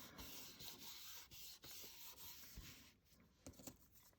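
Faint rubbing of paper or cardstock being handled and smoothed down by hand for about three seconds, then a few light clicks.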